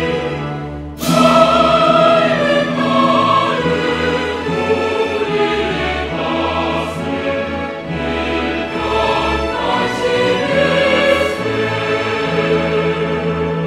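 Classical choral music, a choir singing long held notes over an orchestra; a new phrase comes in loudly about a second in.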